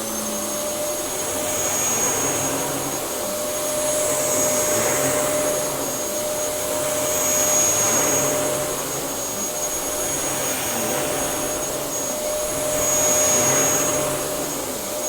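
Dyson DC07 upright bagless vacuum cleaner running at full power: a steady rushing airflow with a high motor whine that settles in as the motor comes up to speed at the start, its loudness swelling and dipping gently every few seconds.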